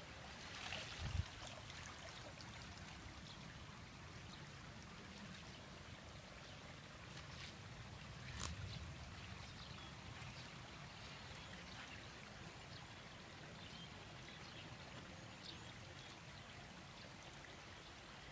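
Faint trickling and sloshing of shallow muddy pond water as a man wades and handles a woven bamboo fish trap, with a couple of brief louder moments about a second in and about halfway through.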